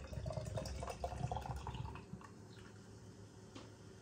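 Beer pouring from a can into a tilted glass, splashing and glugging for about two seconds, then going softer as the pour eases.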